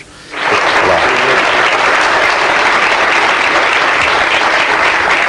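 A studio audience applauding steadily, the clapping rising about half a second in.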